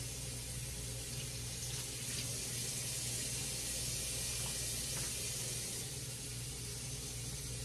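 Water poured from a measuring cup into a pot of simmering soup vegetables and broth, splashing in for a few seconds over a steady hiss.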